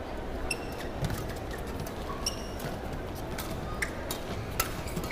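Badminton rally: rackets striking the shuttlecock in a string of sharp hits, with brief rubber shoe squeaks on the court floor and a low hall hum behind.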